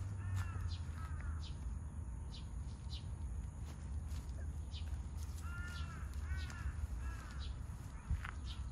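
Birds calling outdoors: two runs of short, repeated calls, one near the start and a longer run of four or so from about halfway, with brief sharp chirps scattered throughout over a steady low rumble.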